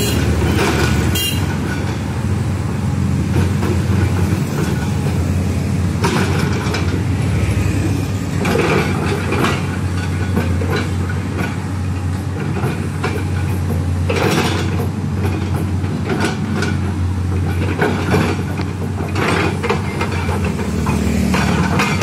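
LiuGong 922D tracked excavator's diesel engine running steadily under load as it digs, with several spells of louder clatter and scraping from the machine and its bucket working the soil.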